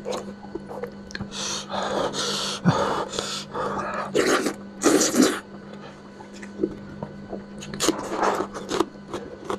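A person eating spicy lamb head close to the microphone. Several long, noisy slurping and sucking sounds come in the first half, then quieter chewing with short lip smacks and clicks.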